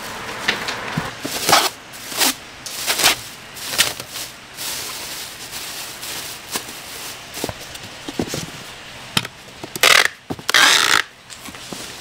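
Plastic bag liner rustling and crinkling as cobs of boiled corn are packed and the bag is folded shut inside a styrofoam box. Near the end there are two loud, hissing screeches of packing tape being pulled off a tape dispenser to seal the lid.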